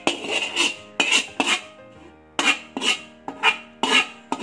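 Metal slotted spoon scraping a metal pan as the last of the prawn gravy is pushed out into a rice cooker pot: about a dozen short scraping strokes, unevenly spaced.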